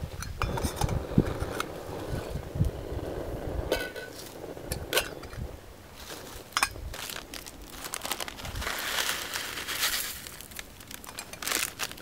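MSR Seagull titanium kettle and its lid being handled: scattered light metal clinks and knocks as the lid comes off and the pot is set down and covered again. A soft hissing rush rises for a second or two about two-thirds of the way through.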